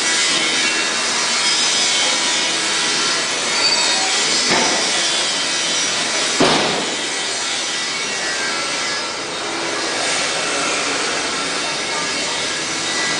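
Steady, loud noise of the kind that disturbs a hotel room, with a couple of sudden knocks about four and a half and six and a half seconds in.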